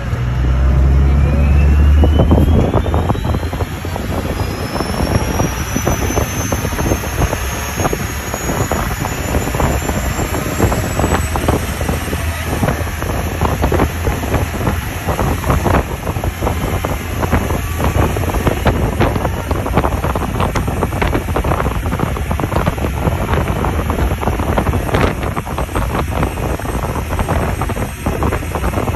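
Parasail tow boat's engine running under way, louder for the first few seconds, with wind buffeting the microphone and the wake rushing behind. A thin whine rises steadily in pitch over the first ten seconds or so.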